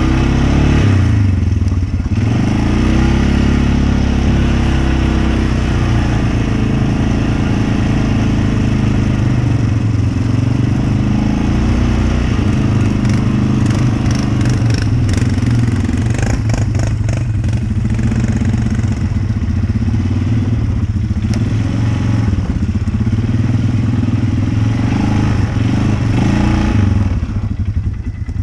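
Off-road vehicle engine driving a muddy trail, its pitch rising and falling with the throttle. A run of rattling and knocking clatter comes about halfway through.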